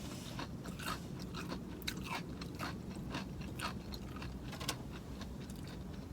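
A person chewing and crunching food close to the microphone, with a quick, irregular run of small crisp clicks and wet mouth sounds.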